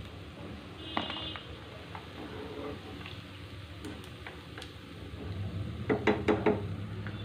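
A steel slotted spoon clinking against a nonstick frying pan while fried chicken pakodi is lifted out of hot oil: one clink with a short metallic ring about a second in, then a quick run of four or five taps about six seconds in. Faint oil sizzle and a low hum underneath.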